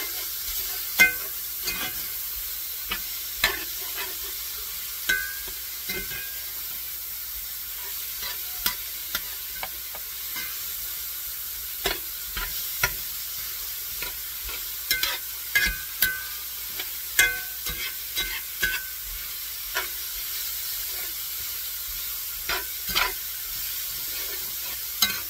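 Diced beef sizzling as it browns in a frying pan, stirred with a utensil that clicks and scrapes against the pan every second or so.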